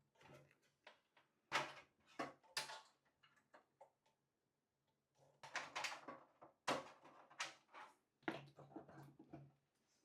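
Faint, irregular clicks, scrapes and rustles of PC hardware being handled and fitted, as a graphics card goes into the case.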